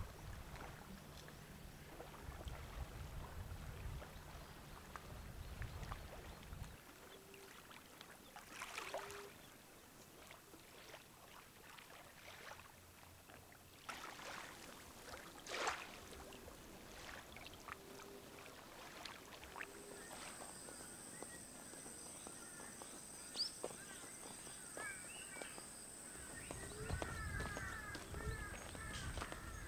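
Quiet outdoor ambience. A low rumble of water and wind fills the first few seconds, with faint bird calls now and then. About two-thirds of the way in, a steady high-pitched insect call sets in, joined by small bird chirps near the end.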